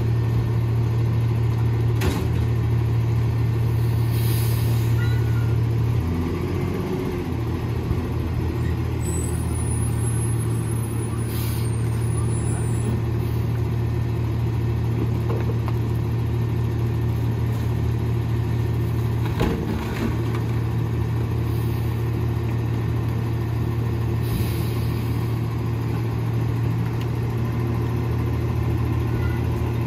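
Rear-loader garbage truck's engine running steadily at idle; about six seconds in, its note drops slightly and changes. A couple of short knocks come from trash being loaded into the hopper.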